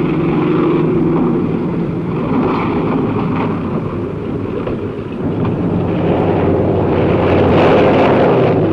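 Propeller aircraft's piston engine running with a steady drone and rushing wind noise, growing louder about six seconds in.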